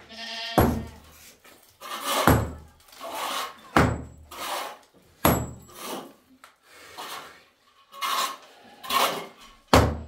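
Sledgehammer blows against a cracked mud-plaster wall, knocking the plaster loose: a run of heavy thuds about every second and a half, with crumbling plaster and grit falling between the blows.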